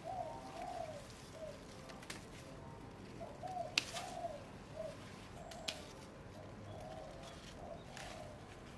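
A dove cooing: a run of short coos that rise and fall, repeated one after another. A few sharp clicks fall between them, the loudest about four seconds in.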